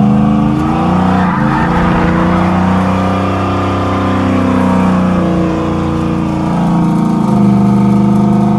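Chevy 1500 pickup's engine revving hard and held at high revs as the truck is driven hard, the pitch dipping and climbing several times and rising again near the end.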